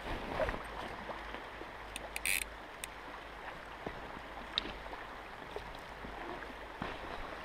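River water flowing and lapping against a small boat drifting on the current, with a few light clicks and a short rustle about two seconds in.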